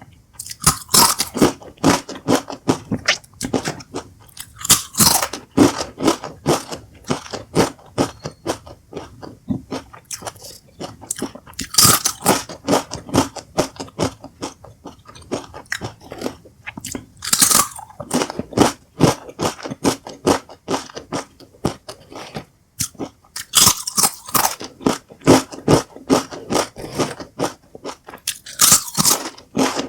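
Doritos tortilla chips being bitten and chewed: a sharp crunching bite every several seconds, each followed by a run of rapid crunching chews.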